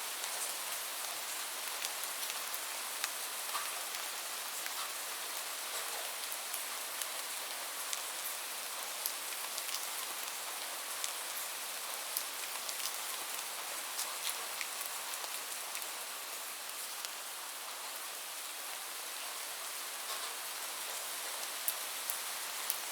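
Light rain falling steadily, a constant hiss with scattered sharp ticks of individual drops hitting a surface.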